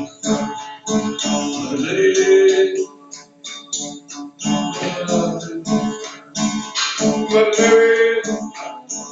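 Music: an acoustic guitar being strummed, with a voice singing long, held notes over it.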